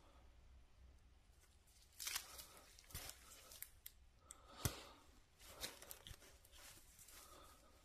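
Faint handling noises of a tyre plug repair: pliers clicking and a gummy rubber plug strip scraping as it is worked out of the puncture in the tread. The sounds come as a few short scrapes and clicks, with a sharper click a little past halfway.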